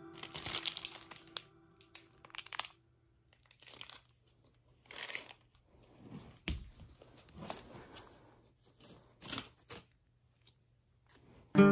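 Intermittent crinkling and rustling of a plastic pastry bag full of oil paint being handled, in short irregular bursts, with a soft thump about six and a half seconds in.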